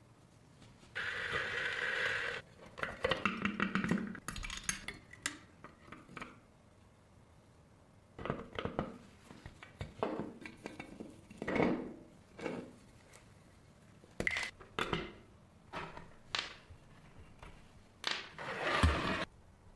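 Small metal parts of a diecast toy truck being handled and worked with hand tools: a string of separate clinks, knocks and scrapes. About a second in there is a steady whirring or hissing noise lasting about a second, and near the end a longer, louder scrape.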